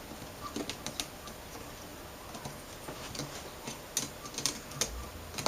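Light clicks and taps as a metal cover is fitted back onto an LCD panel's frame by hand, with a few sharper clicks near the end.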